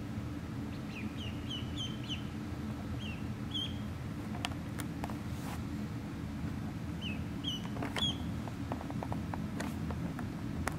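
Ducklings peeping in short, high chirps: a quick run of about five about a second in, two more around three seconds, and another cluster around seven to eight seconds. A steady low hum runs underneath, with a few sharp clicks in the second half.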